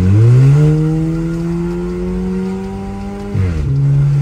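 Volkswagen Jetta with a straight-through exhaust accelerating hard, heard from inside the cabin. The engine note rises quickly as the throttle opens, then climbs steadily, and drops with a gear change about three and a half seconds in.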